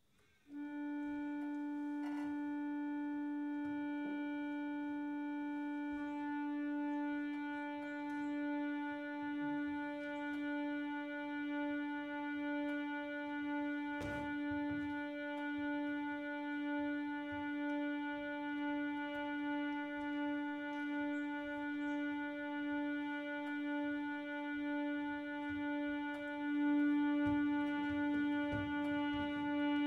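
Harmonium holding one sustained reed note, beginning about half a second in; the tone wavers slowly in strength and swells louder near the end.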